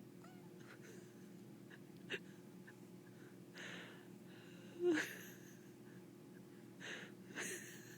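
A baby's breathy little noises: several noisy breaths in short bursts, the loudest about five seconds in with a brief squeak. A steady low hum runs underneath.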